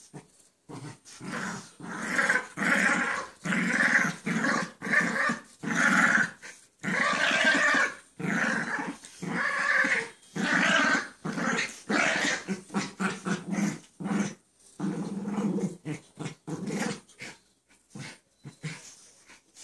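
Dogs play-growling while wrestling: a long run of rough growls, each about half a second to a second, in quick succession, thinning out near the end. The noises come mostly from the small shaggy dog as she plays with the much larger dog lying on his back.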